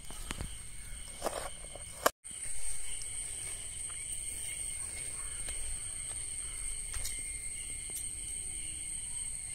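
Steady chorus of insects, several high, unbroken tones held throughout. A few soft clicks come in the first two seconds, and the sound cuts out for a moment just after two seconds in.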